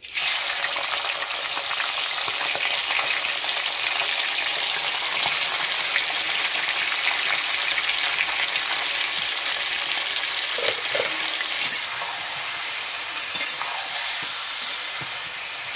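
Chicken pieces going into hot oil in a pan and sizzling hard at once, then frying steadily. The sizzle starts abruptly and stays strong and even.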